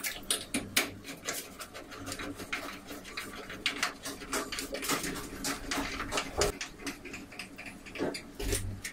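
Metal putty knife scraping over a panel's surface in many short, quick strokes.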